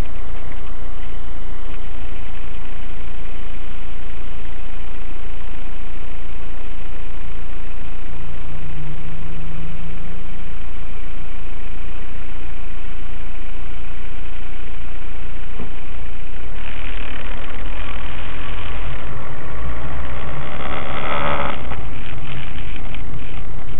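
Car engine and road noise heard from inside the cabin through a dash cam's microphone: the car idles in traffic, then drives on along a wet road, with two stretches of louder engine and tyre noise in the second half.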